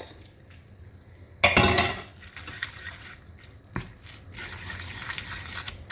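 Spaghetti being stirred and tossed in a frying pan: a utensil scrapes and clatters against the pan, loudest about a second and a half in, with a sharp knock near four seconds.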